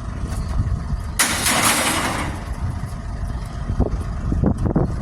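Scrap truck's engine running, with a sudden loud hiss of released air about a second in that lasts about a second and fades. It is the startling noise the truck has just made once before.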